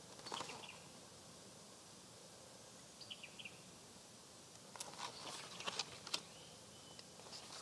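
Faint outdoor background with a few short bird chirps about three seconds in, then the rustling and soft clicks of a paper picture book being handled and its page turned.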